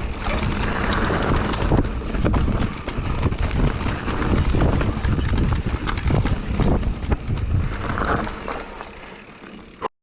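Mountain bike riding a dirt trail: tyre rumble over the ground with many rattles and knocks from the bike, and wind on the microphone. It quietens near the end, then cuts off abruptly.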